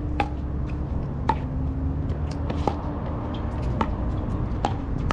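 Pickleball paddles hitting the ball in a rally: five sharp, ringing pops, roughly one a second, over a steady low rumble.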